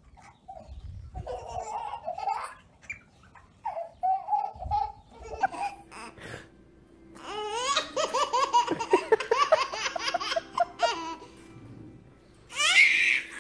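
A baby babbling briefly, then laughing in a long run of rhythmic belly laughs from about seven seconds in, with a loud high-pitched squeal near the end.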